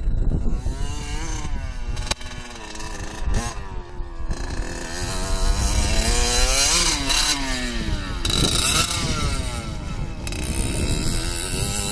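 1982 Yamaha YZ80's two-stroke single-cylinder engine being ridden, its pitch rising and falling again and again as the throttle opens and closes. The engine has just been rebuilt with a new piston.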